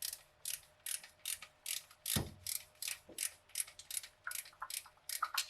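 Hand ratchet clicking in a steady run of short strokes, about two or three a second, as it backs out an old, dirty exhaust manifold bolt. There is one dull knock about two seconds in.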